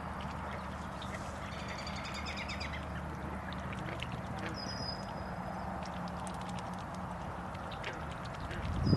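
Birds calling over a steady low hum: a rapid series of short calls about a second and a half in, then a thin, high whistled note about five seconds in.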